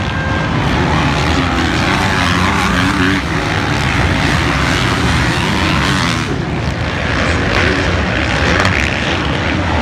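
Several motocross bikes racing around a dirt track, their engines revving up and down and blending into loud, continuous engine noise.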